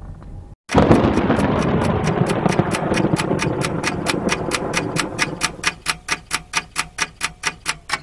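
A brief low hum of a car cabin gives way to a moment of silence. A loud noise swell then starts with a clock-ticking sound effect, about four sharp ticks a second. The swell fades over several seconds while the ticking goes on.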